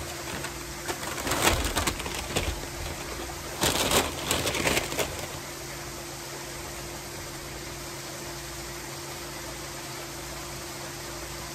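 Steady hiss of a backyard pool waterfall, with two bursts of close, crackly eating noise: about a second and a half in, and again about four seconds in.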